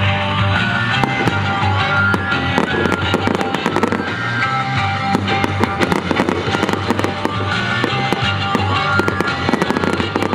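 Fireworks display: aerial shells bursting and crackling in quick succession, several sharp bangs a second, with the show's music playing underneath.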